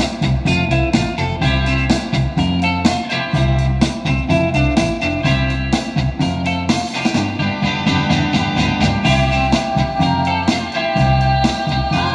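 Rock music with guitar and a steady beat, played through a single-ended 6V6 vacuum tube amplifier and reproduced by a ported wooden loudspeaker cabinet.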